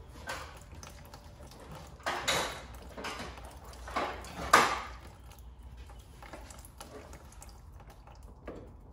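A handful of short metallic clinks and knocks as tools and hands work at a car's rear axle and its mounting bracket from below, the loudest about four and a half seconds in.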